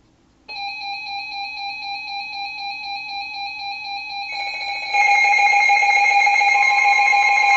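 Weather alert radio alarm going off for a new severe thunderstorm warning. An electronic alarm tone with several overtones starts about half a second in and pulses steadily. A louder alarm layer joins about five seconds in, and near the end a steady higher tone comes in, the 1050 Hz NOAA Weather Radio warning tone.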